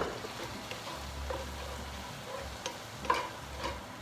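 Leeks frying and sizzling in a frying pan, just splashed with wine, while a spatula stirs them, with a few light clicks and scrapes of the utensil against the pan.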